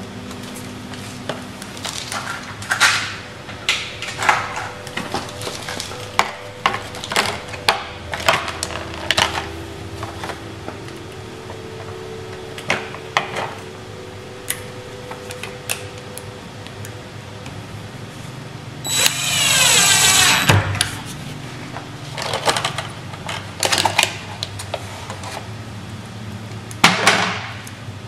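Cordless drill/driver screwing a door latch plate into the edge of an interior door: small clicks and rattles of screws and plate being set by hand, then the drill motor running once for about a second and a half, about two-thirds of the way through, and again briefly near the end.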